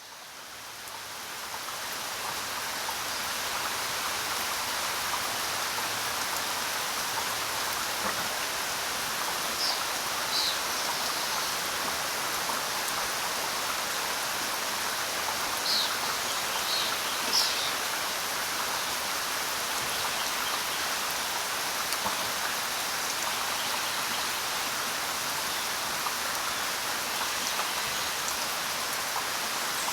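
Heavy rain falling steadily, fading in over the first few seconds. A few short, high bird chirps come about ten seconds in and again around sixteen to seventeen seconds.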